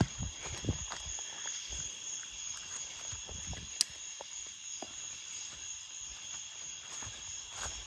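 Insects trilling steadily in high, even tones, with scattered soft low thumps and one sharp click a little under four seconds in.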